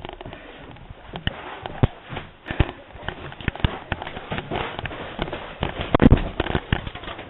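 Airsoft guns firing during a skirmish: a scattered run of sharp pops and clicks, loudest in a cluster about six seconds in.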